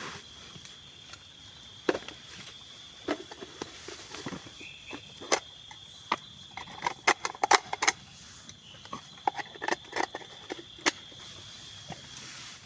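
Irregular sharp clicks and knocks, clustered thickest in the middle, over a steady high-pitched insect drone.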